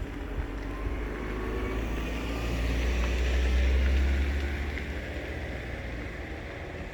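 Steady rushing of a river running beside the campsite, with a deep low rumble that swells about halfway through and then eases.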